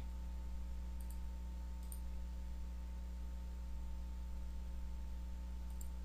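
Faint computer mouse clicks: one about a second in, another near two seconds, and one near the end. Under them runs a steady low hum.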